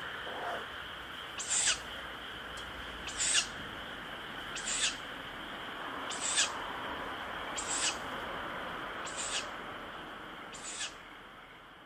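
Ural owl chick giving its hissing 'pishu' begging call, one short screech about every one and a half seconds. A steady high hum runs underneath, and everything fades a little near the end.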